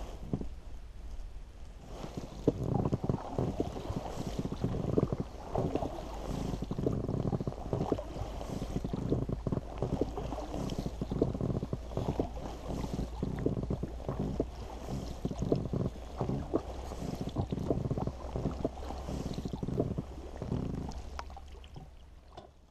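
Oars of an inflatable boat being rowed: irregular knocks and watery splashes, over a steady low wind rumble on the microphone. The sound fades out near the end.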